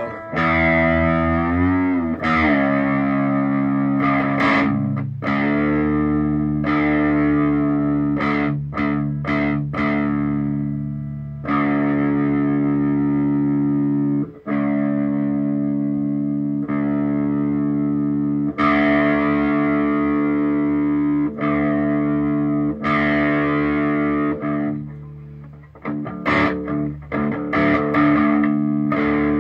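Electric guitar strumming chords and letting each ring for a few seconds, with short breaks between chords.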